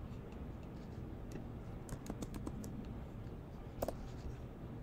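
Typing on a computer keyboard: scattered key clicks, a quick run of them about two seconds in, and one louder click near the end.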